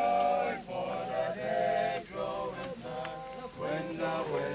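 Voices singing a slow song in long held notes, with a short break about every second between phrases.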